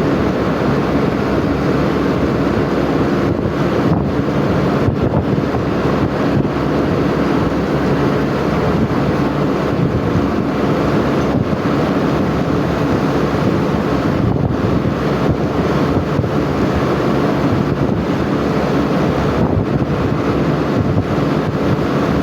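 Vehicle engine running steadily, with wind buffeting the microphone and a few faint knocks along the way.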